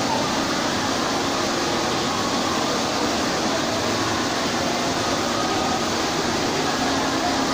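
Indoor mall fountain running: a tall central water jet and a ring of smaller jets splashing into the basin, a steady rush of falling water.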